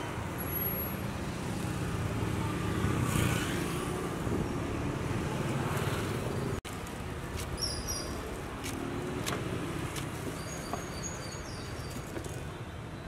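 Roadside traffic noise: a steady rumble of passing vehicles, with a sudden brief gap in the sound about halfway through and a few light clicks and knocks after it.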